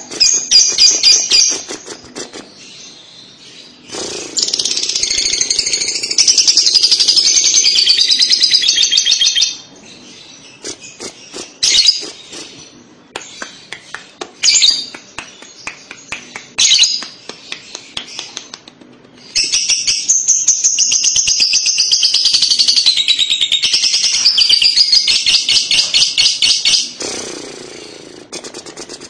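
Fischer's lovebird singing its ngekek: two long runs of rapid, trilling chatter, one from about four to nine seconds in and a longer one from about nineteen to twenty-seven seconds, with short chirps and clicks between.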